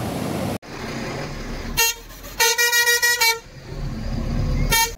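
Vehicle horn honking over a low engine rumble: a short toot, then a quick run of toots, then another short toot near the end.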